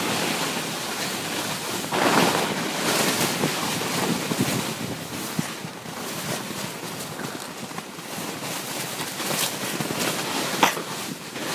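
A sled sliding fast down a packed, slippery snow track: a steady rushing noise with wind buffeting the microphone, loudest about two seconds in.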